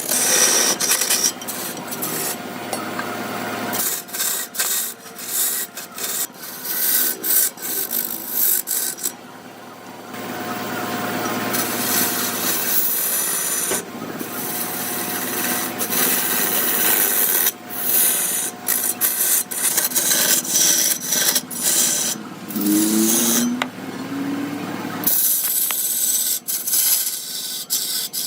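Tools scraping and rasping against redwood in a run of separate passes, with abrupt changes between them.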